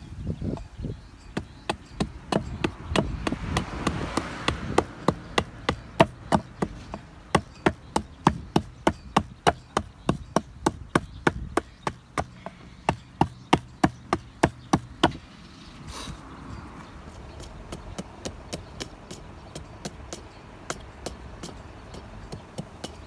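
Hatchet chopping a wooden stick against a log chopping block, hewing it to shape: a steady run of sharp knocks, about three a second, that stops about two-thirds of the way through.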